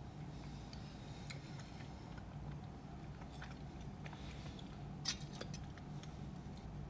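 Faint chewing and small mouth sounds of someone eating a spoonful of baked beans in tomato sauce, with scattered light clicks and one sharper click about five seconds in, over a low steady hum.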